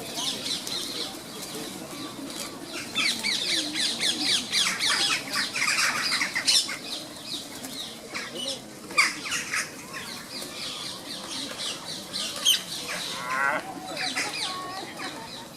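A flock of rose-ringed parakeets screeching, with many short, harsh calls overlapping. The calls are thickest from about three to seven seconds in.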